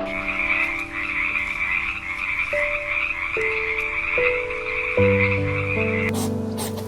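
A dense chorus of frogs calling without a break, cutting off suddenly about six seconds in, over soft piano music.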